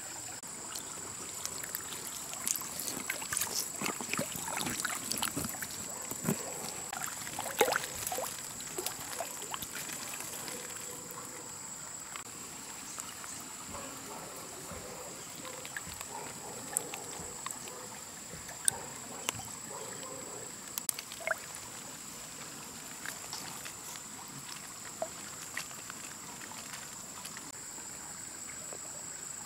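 Insects droning steadily at one high pitch, with a flurry of water splashes and rustling in the first ten seconds and scattered sharp clicks after.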